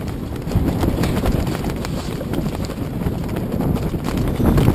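Wind and small waves around a moored floating clubhouse on open water: a steady low rumble with many small irregular knocks and slaps through it.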